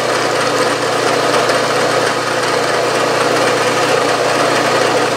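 Milling machine running steadily, its spindle turning a center drill clear of the work between holes: an even mechanical whir with a steady hum.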